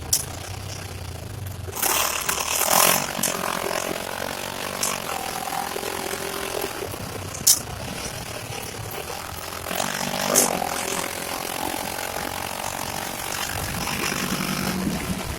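Honda Pioneer 700-4 side-by-side's single-cylinder engine running over a trail, revving up twice, with a few sharp knocks; the loudest knock comes about halfway through.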